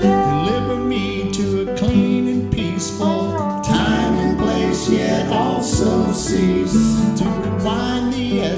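Music: an instrumental passage of an acoustic song, with plucked guitar-like strings and held notes over a bass line, and a few sliding pitches near the middle.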